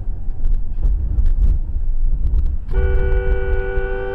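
Low rumble of a car's engine and road noise with a few light clicks. About three seconds in, a car horn starts a steady two-tone blast and holds it as another vehicle closes in, a warning just before a collision.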